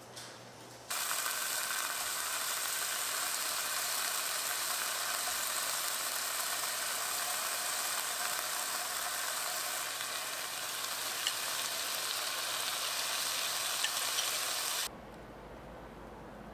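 Tofu frying in a pan: a steady sizzle with a few small pops, starting suddenly about a second in and cutting off near the end.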